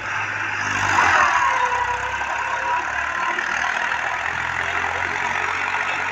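Massey Ferguson 7235 DI tractor's three-cylinder diesel engine running steadily under load as it pulls a cultivator through the field, with a steady hiss over it. About a second in, a drawn-out tone slides down in pitch and fades over the next two seconds.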